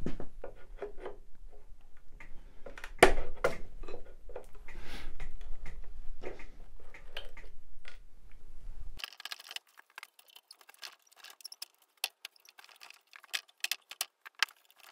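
Metal staples being worked and pried out of a wooden chair seat around a leg joint with a hand tool: scraping, clicks and sharp knocks, the loudest knock about three seconds in. From about nine seconds on only lighter clicks and taps.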